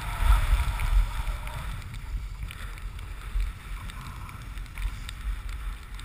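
Wind buffeting the microphone of a camera skiing downhill, a low rumble that is strongest in the first second, over the steady hiss of skis sliding on packed snow.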